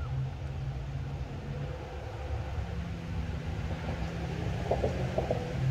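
A motor engine running with a steady low hum and rumble, growing slowly louder.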